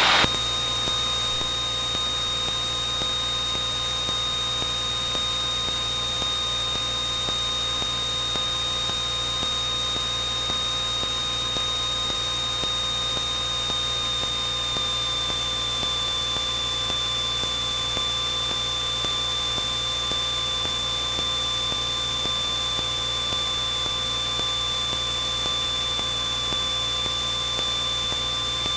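Steady cockpit drone of a Cessna 172N gliding down final approach to landing: hum and hiss with a thin high whine that settles slightly lower about halfway through.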